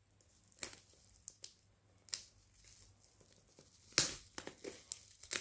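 Bubble wrap and sellotape crinkling and tearing as they are slit with a small pocket knife: a few scattered crackles, then a louder run of crackling and tearing about four seconds in.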